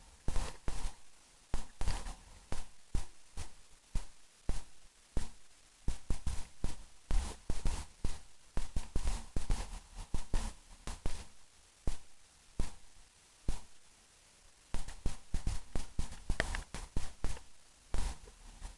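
Irregular crackling knocks and thumps, often several a second, with a lull of a couple of seconds past the middle.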